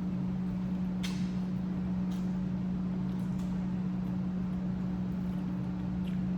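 A steady low electrical or appliance hum, with a few faint short clicks and smacks of eating scattered through it.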